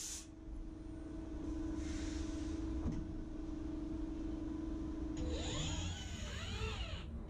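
Servo motors of a lathe's integrated robot arm whining as the arm moves, the pitch rising and falling several times in the second half over a steady machine hum and low rumble. A chip-blasting hiss cuts off just after the start.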